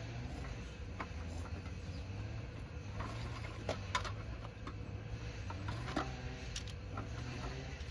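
Scattered light clicks and knocks of camp gear being handled by a stove, over a low steady rumble.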